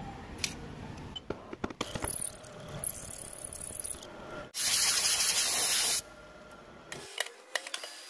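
Milling-machine hum with scattered clicks and knocks, then a loud burst of compressed air lasting about a second and a half, blowing metal chips off a freshly milled slot on a steel gear shaft. The low hum drops away near the end.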